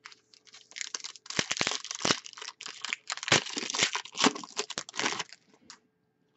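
Plastic wrapper of a pack of Upper Deck hockey cards being torn open and crumpled by hand: dense crinkling from about a second in, stopping a little after five seconds.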